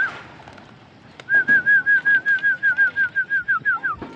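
A person's warbling whistle, one steady pitch wobbling about five times a second, calling racing pigeons to enter the loft. It starts a little over a second in and ends with a few falling slides near the end.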